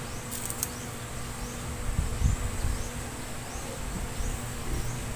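Quiet room ambience with a high chirp repeating about every half second in the background, each rising in pitch, over a faint steady hum; a short rustle near the start.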